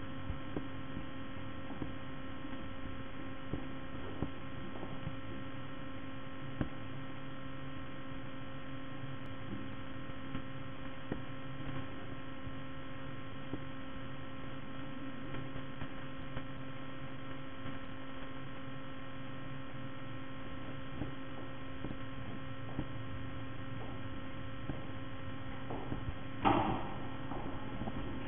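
A steady electrical hum with several overtones, constant throughout, with scattered faint ticks and a short louder sound near the end.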